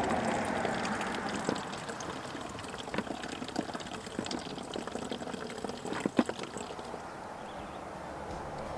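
Water pouring and trickling into a container, a steady wash of running water, with a few sharp knocks from handling about three and six seconds in.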